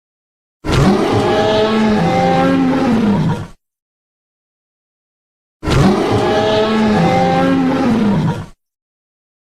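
A Tyrannosaurus rex roar sound effect, played twice, each roar lasting about three seconds with a pitch that rises and then falls, separated by dead silence.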